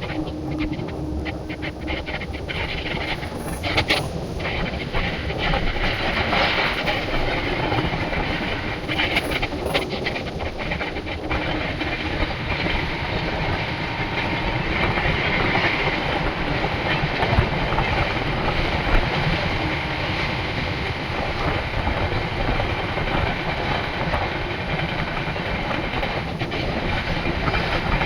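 Dakshin Express passenger train running along the track: a steady noise of wheels on rails, with clusters of clicks over the rail joints in the first ten seconds or so.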